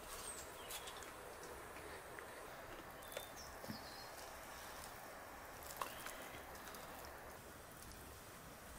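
A few scattered light clicks and taps of people eating, hands and utensils on plates and bowls, over a faint steady hiss.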